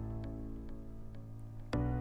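Gentle background music: a held chord slowly fading, with a new chord struck near the end.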